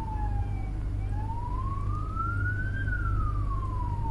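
Police car siren in a slow wail: its pitch falls, rises for about two seconds, then falls again, over a steady low hum.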